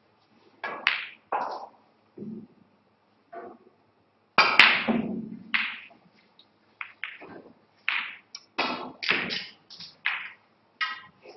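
Snooker balls struck and colliding: a series of sharp clicks and knocks of cue on ball, ball on ball and balls against the cushions, the loudest about four and a half seconds in, with a quick run of knocks near the end.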